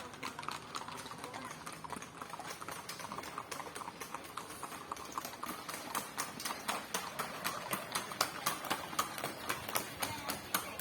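Horses' hooves clip-clopping, many overlapping, irregular hoofbeats from a group of horses walking; the hoofbeats grow louder and more distinct about halfway through.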